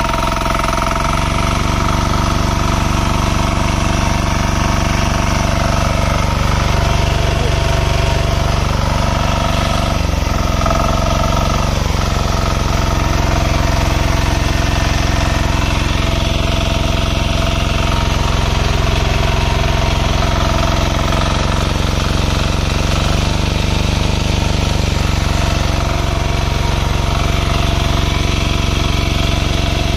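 Small diesel engine running steadily, driving a generator. The note dips briefly about ten seconds in and again about two seconds later.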